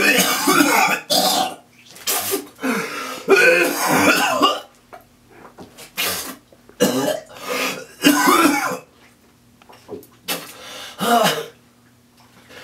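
A person coughing and groaning in repeated strained bursts, with short pauses between them.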